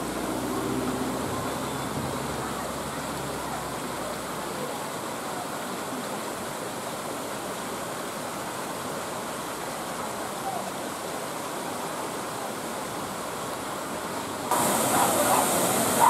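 Steady rush of a small waterfall and a rocky stream, with faint voices of people in the background. Near the end the water suddenly gets louder and hissier.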